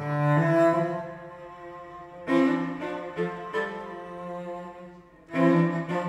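Bowed cello music: long sustained notes, several pitches sounding together, with new bow strokes a little over two seconds in, about three and a half seconds in, and again after a brief fall-off near the end.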